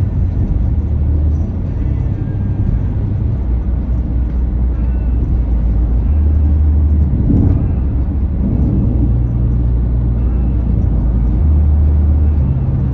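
Steady road and engine noise inside a car cabin at motorway speed, with music playing over it. The music's bass line holds low notes that change every second or two.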